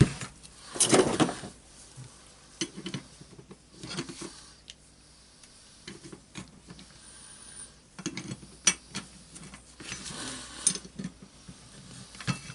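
Small metal parts clinking, knocking and scraping in scattered strokes as a screw is turned into the sander's armature assembly to press out its ball bearing.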